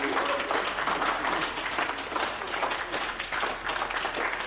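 Dense crowd noise with scattered clapping, washed in heavy reverb.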